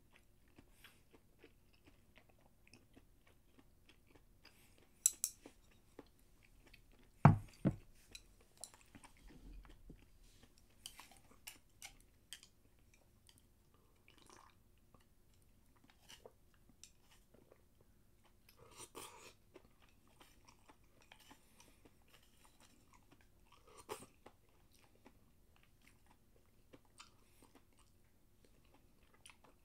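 A person eating from a bowl with chopsticks: quiet chewing with scattered light clicks, and one loud thump about seven seconds in.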